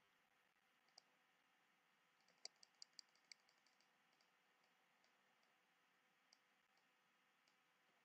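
Near silence with faint computer keyboard and mouse clicks: a single click about a second in, then a quick run of clicks around two and a half to three and a half seconds in.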